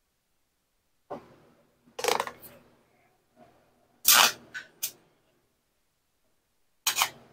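Miller 300 stick welder striking an arc on a steel beam bracket in about six short crackling bursts that die out each time, the rod not holding an arc: the current is set too low, so it gets turned up.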